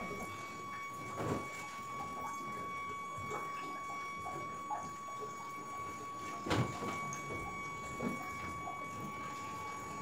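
Clothes being handled and stuffed into the drum of a front-load washing machine: soft cloth rustling with a few light knocks, the clearest about six and a half seconds in.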